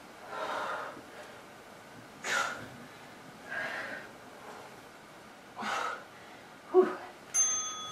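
A woman breathing hard while doing push-ups: five short, forceful exhales about every second and a half, the last one voiced like a grunt. A short electronic beep comes near the end.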